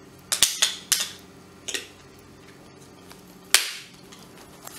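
Plastic front cover trim of an Orpat HHB-187E hand blender's handle being pressed onto the housing: sharp snap-fit clicks, a quick run of them in the first second, another shortly after, and the loudest about three and a half seconds in.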